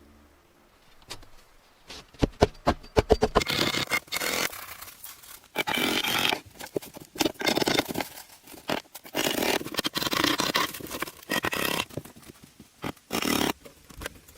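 Repeated scraping strokes, each about a second long and irregularly spaced, mixed with sharp clicks and knocks; they start a few seconds in after a quiet opening.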